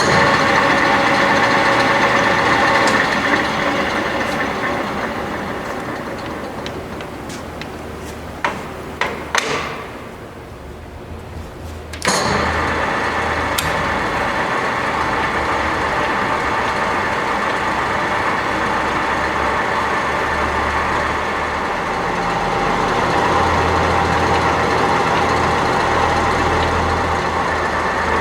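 LeBlond Regal 15-inch engine lathe running with a steady gear whine. It winds down gradually over several seconds, a few sharp clicks follow, and about twelve seconds in it starts up again suddenly and runs steadily.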